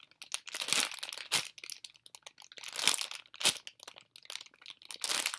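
Clear plastic packaging around a squishy toy crinkling as it is handled close to the microphone, in irregular crackles with a few sharper snaps.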